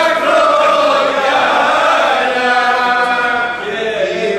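Men's voices singing a Greek folk song together without instruments, drawing out long held, slowly wavering notes.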